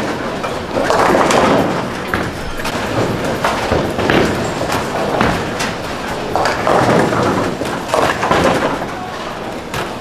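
Bowling alley din: balls rolling down the lanes and repeated knocks and clatters of balls hitting pins, over indistinct voices.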